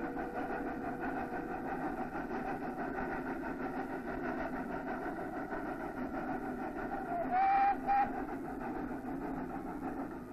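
Snowdon Mountain Railway steam rack locomotive running with its carriage, a steady mechanical rumble. About seven seconds in its whistle gives two short blasts, the first longer.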